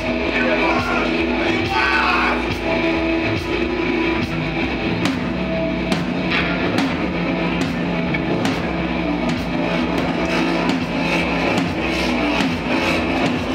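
A live rock band playing loud: electric bass and guitar with a steady drum beat struck on a drum with sticks.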